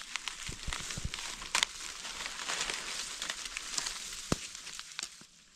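Dry fallen leaves and grass crackling and rustling as gloved hands and a knife dig a mushroom out of the leaf litter, with many small sharp snaps and ticks.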